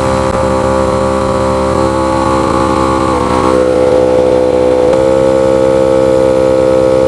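SmittyBilt 2780 portable 12-volt air compressor (2.54 CFM) running steadily with an even, pitched hum while pumping up a large off-road tire toward 30 psi. Its tone shifts slightly about three seconds in.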